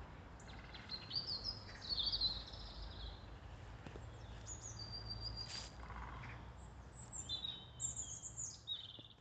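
Small birds chirping and calling in short bursts over a low, steady rumble of outdoor ambience.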